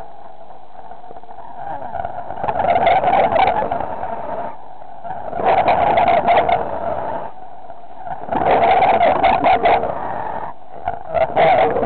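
Diver breathing on an underwater breathing set: a noisy breath with bubbling roughly every three seconds, with a quieter hiss between breaths.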